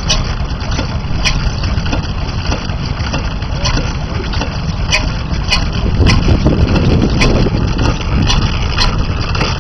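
Antique J. Lunant single-cylinder gas/petrol stationary engine running, with sharp clicks at uneven intervals about a second apart over a steady low rumble.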